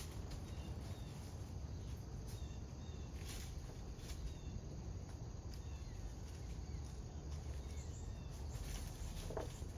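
Quiet outdoor ambience: faint insects and scattered bird chirps over a low, steady background rumble, with a few soft clicks.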